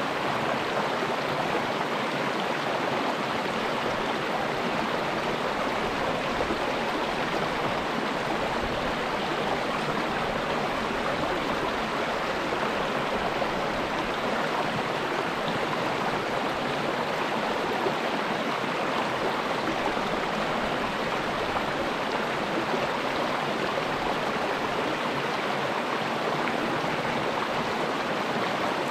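Small river rapid: water rushing steadily over rocks.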